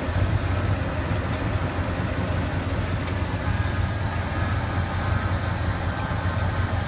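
1965 Pontiac GTO's rebuilt 389 V8 idling steadily, a low, even rumble.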